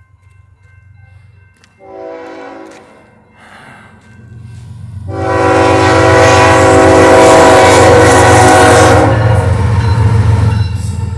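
BNSF diesel freight locomotive sounding its horn for a grade crossing. A one-second blast comes about two seconds in, a fainter one follows, then a long, loud blast of about four seconds as the locomotive reaches the crossing, all over the low rumble of the train.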